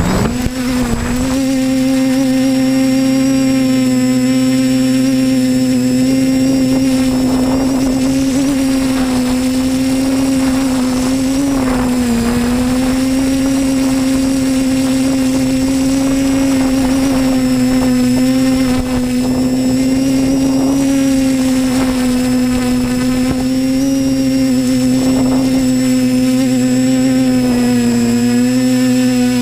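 TBS Discovery Pro quadcopter's electric motors and propellers heard from the onboard camera: a steady whine that rises in pitch as the props spin up at takeoff just after the start, then holds, with small dips in pitch about twelve seconds in and near the end as the throttle changes.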